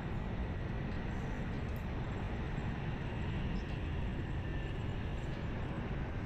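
Steady wind rumble on the microphone mixed with engine and tyre noise from riding along a road among motorbikes.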